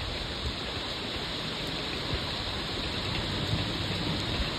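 Heavy rain pouring down steadily, a constant even hiss of falling water.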